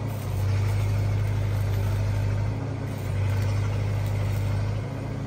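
Stick (SMAW) welding arc crackling and hissing steadily during the cap pass on the bottom of a steel pipe joint, over a steady engine hum.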